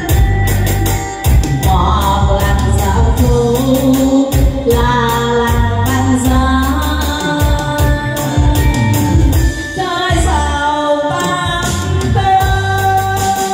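A woman singing a Vietnamese song into a microphone over an amplified backing track with a steady bass beat.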